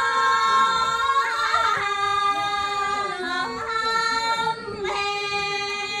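A woman singing a folk song in long, held notes that step from one pitch to the next.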